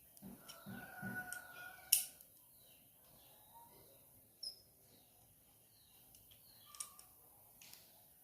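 Torque wrench being pulled on cylinder head bolts, giving a sharp click about two seconds in and a lighter one near seven seconds as it reaches its set torque.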